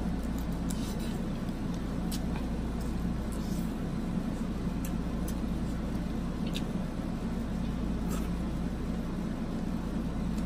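Close-miked eating of crab meat: faint scattered clicks and smacks of chewing and fingers picking at crab shell, about one every second, over a steady low background hum that is the loudest sound.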